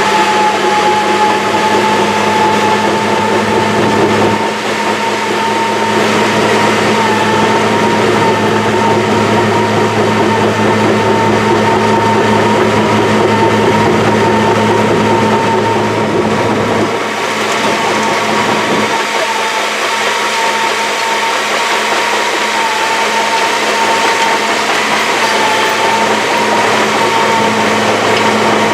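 Engine of an old Caterpillar machine running steadily, with a constant high whine over a lower hum. The lower hum changes about two-thirds of the way through.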